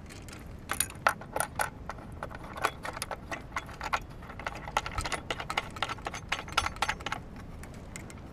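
Irregular metallic clinking and jingling as a plane table is screwed onto an aluminium surveying tripod from underneath, the small chain on the tripod head rattling as the screw is turned.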